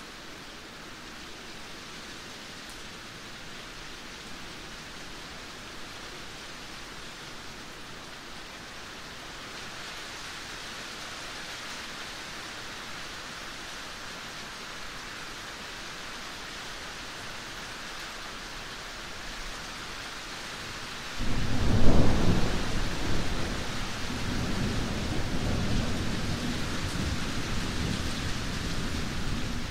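Steady rain, an even hiss that slowly grows louder. After about twenty seconds a sudden clap of thunder breaks in and rolls on as a low rumble under the rain.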